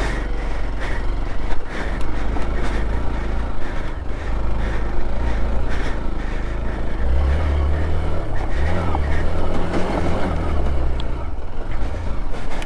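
Off-road vehicle engine running steadily, with a heavier, louder engine note from about halfway through for a few seconds, and scattered knocks and rattles.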